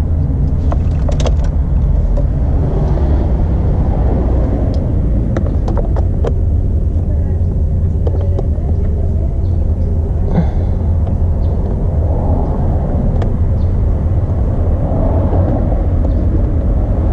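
A steady low rumble with scattered small clicks and taps as a Torx driver is worked on the steering-wheel airbag screws.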